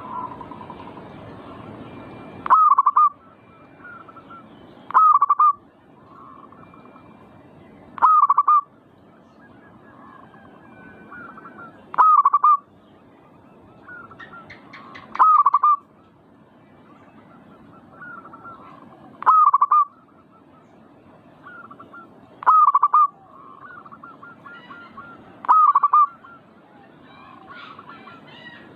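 Zebra dove (perkutut) cooing: a short, loud call of about half a second, repeated eight times at roughly three-second intervals, with fainter, softer calls in between.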